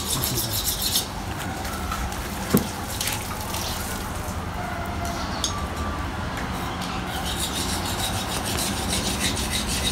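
A butcher's knife slicing and scraping through a pig carcass's skin and fat in repeated rasping strokes, with a single sharp knock about two and a half seconds in.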